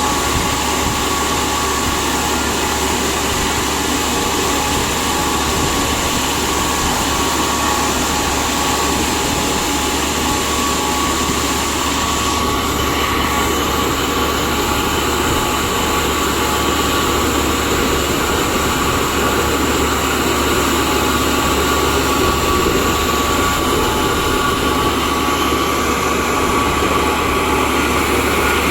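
Reverse circulation drilling rig running steadily under load: continuous machinery noise with a steady high whine over it.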